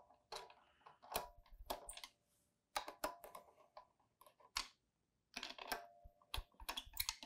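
Scattered light clicks and scrapes of a star-bit screwdriver backing out the cover screws on a Grundfos MLE motor, each a short tick with quiet between.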